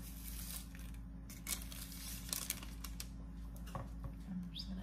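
Light rustling of parchment paper with a few scattered soft clicks and knocks as cookies and decorating supplies are handled on a countertop.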